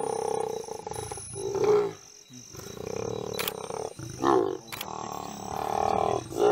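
Lions growling and snarling as they feed on a live hippo: long drawn-out growls broken by short, loud snarls three times.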